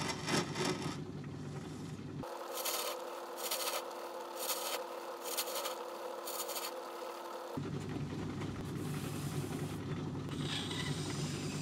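Myford ML7 lathe running, turning a small phosphor bronze bearing with a cutting tool. The sound shifts abruptly about two seconds in and again past halfway, with a steady hum and a repeated hiss in the middle. In the last few seconds an abrasive pad rubs against the spinning bronze.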